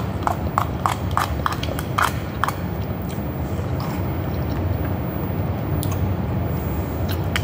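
Eating sounds: chewing and a plastic fork working food in a plastic bowl, with a quick run of small clicks in the first couple of seconds. A steady low rumble of room noise lies under it.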